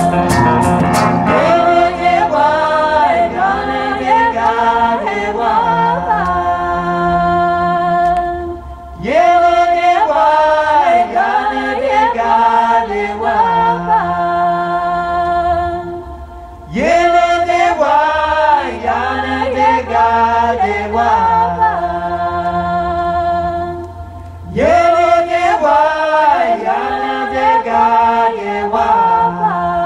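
Recorded vocal music with several singing voices, played back over Goebel Divin Majestic bending-wave loudspeakers. It comes in repeated phrases of about eight seconds, each with a short dip in loudness before the next one starts.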